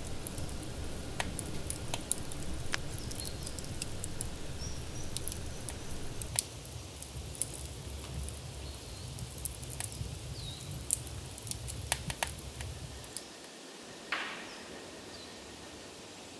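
Wood campfire crackling, with scattered sharp pops and snaps over a low steady rumble. The rumble drops away about thirteen seconds in, after which only a few faint clicks remain.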